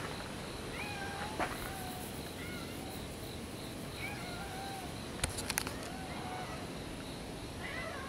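A cat meowing several times, each meow short and a second or more apart.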